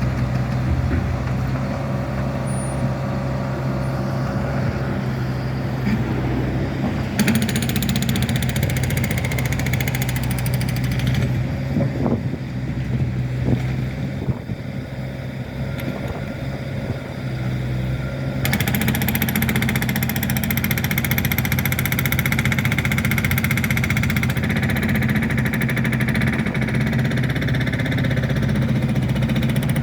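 Heavy diesel construction machinery running steadily, with a rapid hammering rattle that comes and goes and gets louder a little past halfway.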